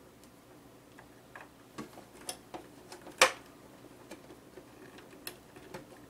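Scattered clicks and taps of a SATA cable and its plastic connector being handled and pushed against a drive inside a cramped steel computer case, with one sharp, loud click about three seconds in.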